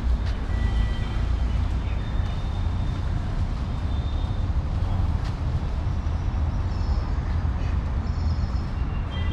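Steady low rumble of road traffic, with a few short high chirps of birds.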